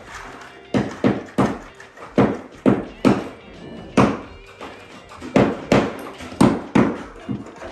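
A quick series of sharp knocks, about two a second, with music under them.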